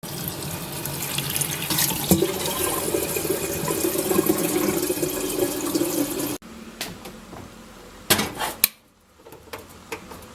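Water running steadily from a kitchen tap into a sink or vessel, stopping abruptly about six seconds in. Then a few sharp knocks about two seconds later.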